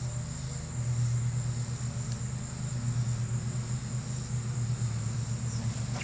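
Steady high-pitched chirring of insects, with a steady low hum underneath.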